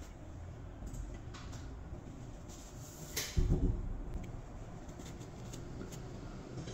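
Small gears and pins from a disassembled impact wrench being handled on a workbench: faint clicks and rustling, with one dull thump about halfway through.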